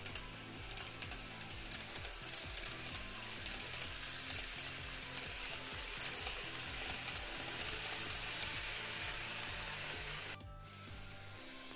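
Running noise of an N scale model electric train passing close by: a steady hissing rush with many small irregular clicks from the wheels on the track, over background music. The train noise cuts off suddenly about ten seconds in.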